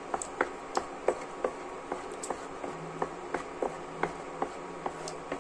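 Wooden spatula tapping and scraping against a nonstick frying pan while stirring butter into chocolate syrup, a quick run of light knocks about three a second.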